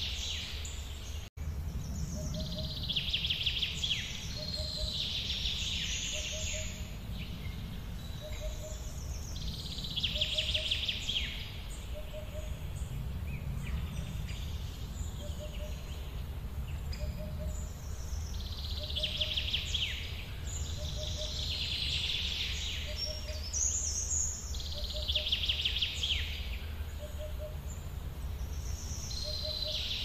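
Woodland birdsong: bird phrases sweeping down in pitch come every few seconds over a steady low rumble. A soft low pip repeats a little more than once a second, and the sound cuts out for an instant about a second in.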